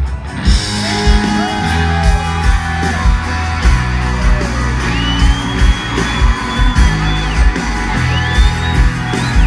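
Live country-rock band playing the opening of a song, bass and drums heavy and guitar on top, heard from within the crowd in a large hall. Fans whoop over it, and a long high whistle rises and holds about halfway through, with another near the end.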